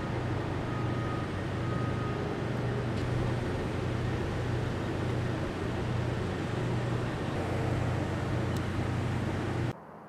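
Idling diesel engines of fire trucks at a crash scene: a steady low rumble with a throb about once a second. It cuts off suddenly just before the end.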